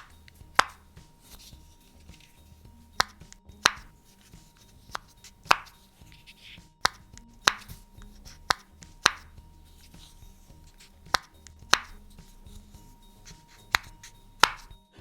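Homemade pop-it fidget toy being pressed, giving single sharp pops at uneven intervals of about one a second, with faint background music underneath.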